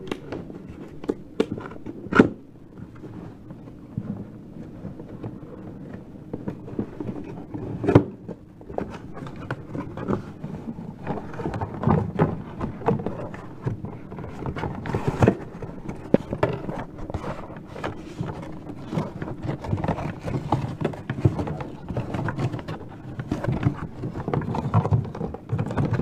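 Cardboard boxes of data cable being handled close to the microphone: irregular knocking, scraping and rustling of cardboard and cable, with two sharper knocks about two and eight seconds in. A faint steady hum sits underneath.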